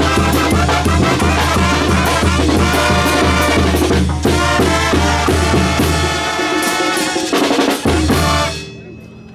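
Mexican banda brass band playing: tambora bass drum and cymbal beating under trumpets, trombones, clarinets and a sousaphone bass line. The bass line drops out a little past six seconds, and the band stops about eight and a half seconds in.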